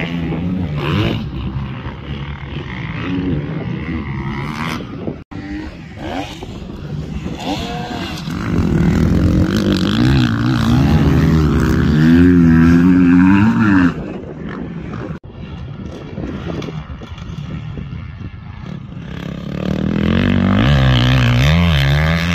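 Motocross dirt bikes riding the track, their engines revving up and falling off through corners and jumps. The loudest stretch comes as a bike passes close, from about a third of the way in to the middle, and another rises near the end.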